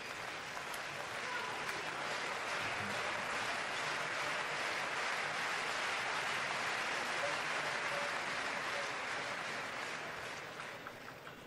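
Arena crowd applauding a won point, swelling over the first couple of seconds, holding, then dying away near the end.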